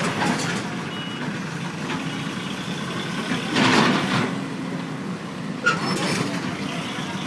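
Heavy diesel machinery, an excavator loading a truck, running steadily. A louder rush of noise comes about three and a half seconds in and lasts under a second.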